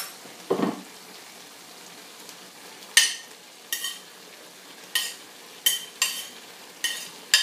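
A fork clinking as cooked shrimp are pushed off a plastic plate into a hot pan of pasta. There is a dull knock about half a second in, then about seven sharp, briefly ringing clinks in the last four seconds, over a faint steady sizzle from the pan.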